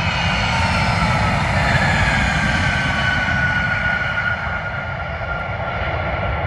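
Aircraft engines running over a steady rumble, with several high whining tones that slowly fall in pitch.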